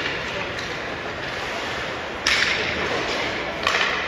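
Two sharp cracks of hockey shots, stick striking the puck, each ringing on briefly in the rink's echo: one about two seconds in and another near the end.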